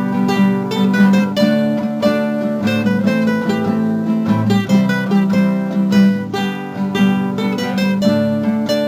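Instrumental guitar music with quick plucked notes over a steady low note: the opening of a song before the singing comes in.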